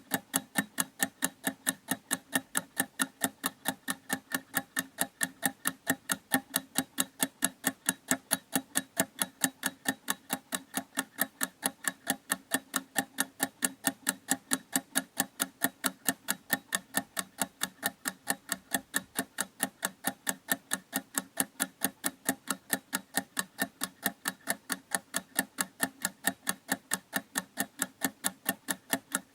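A clock ticking steadily in an even, rapid beat of several sharp ticks a second.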